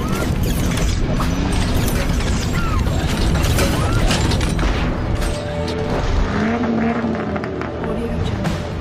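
Trailer-style mechanical sound effects: rapid clicking, ratcheting and knocking with heavy low thuds, layered over music. A single tone rises and falls about six seconds in.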